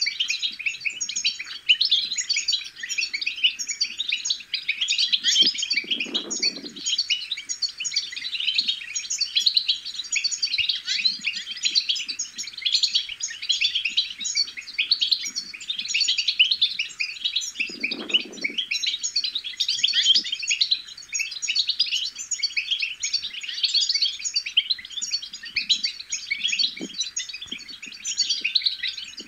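European goldfinch twittering: a dense, unbroken stream of rapid high chirps and trills.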